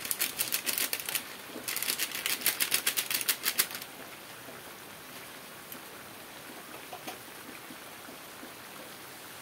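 Patin fish curry cooking in a wok: two bursts of rapid crackling, about ten crackles a second, in the first four seconds, then a steady soft hiss of the pan over the flame as the fish releases its water.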